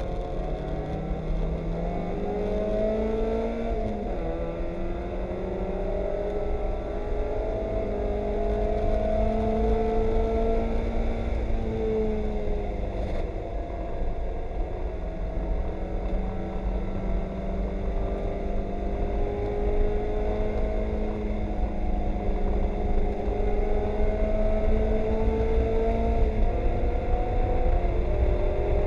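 Mazda Miata race car's four-cylinder engine heard from inside the cockpit under racing load, its revs climbing and falling through the corners, with a sharp drop at a gear change about four seconds in and again near the end. A steady low rumble of road noise runs underneath.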